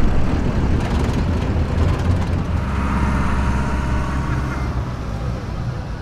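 Diesel pickup truck engine working hard against a pulling sled: a heavy low rumble that eases off toward the end.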